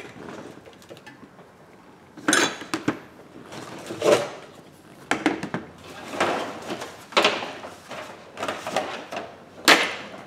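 Small hard objects being handled and set down on a workbench: a series of sharp knocks and rattles about a second apart.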